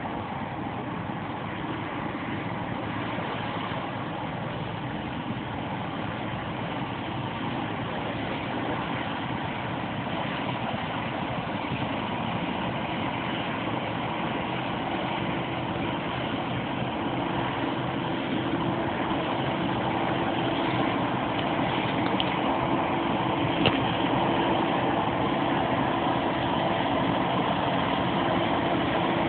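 Claas Lexion 550 combine harvester running steadily while harvesting wheat: a dense, even machine noise that grows gradually louder. A steady hum joins it about halfway through.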